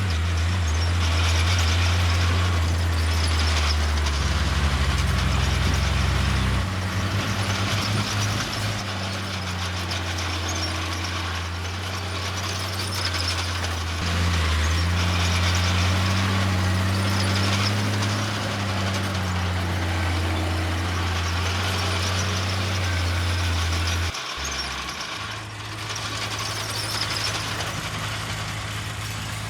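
Heavy diesel earthmoving machinery working: a deep engine note that shifts in pitch under changing load, with a high squealing noise that swells about every two seconds. Near the end the engine note drops briefly, then picks up again.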